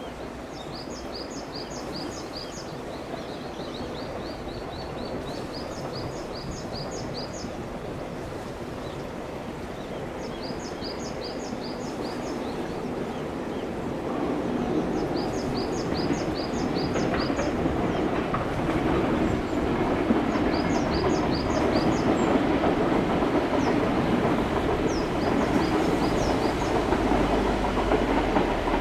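Shinano Railway SR1-series electric train approaching, its running noise growing steadily louder from about halfway through. A bird sings a short chirping phrase every few seconds.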